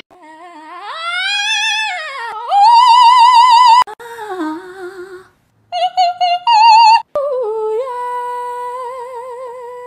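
A high, singing-like voice in several cut-together phrases. It opens with a rising glide, then holds long notes with a steady, even vibrato. The breaks between phrases are abrupt, and the loudest held note comes about two and a half seconds in.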